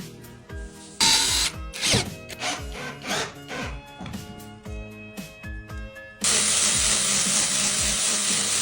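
Background music, with a few short noisy bursts early on. About six seconds in, a power tool starts and runs steadily and loudly, working a wooden board.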